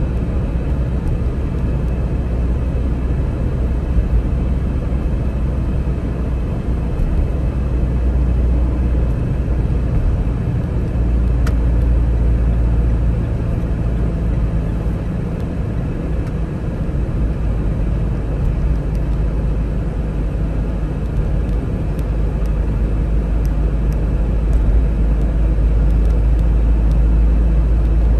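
Steady road and engine rumble of a car cruising at expressway speed, heard from inside the cabin.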